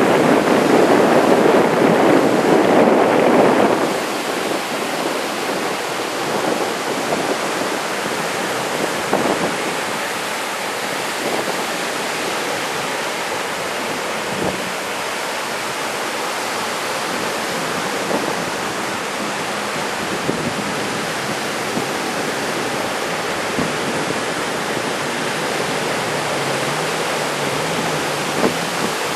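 Big typhoon-swell surf breaking and washing ashore, a steady rush of water. It is louder for the first few seconds, with wind buffeting the microphone, then settles.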